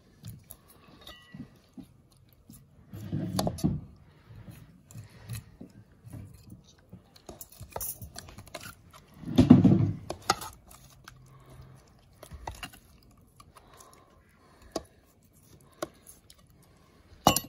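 Wet squelching and small clicks of gloved hands pulling the innards out of an octopus head and a knife cutting through its muscular flesh in a plastic bowl, with two louder bursts of handling about three and nine seconds in.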